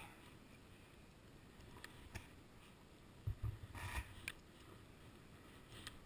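Faint crunching and rustling of a person moving on crusted snow, with scattered small clicks. A thump and a louder crunch come about three and a half to four seconds in.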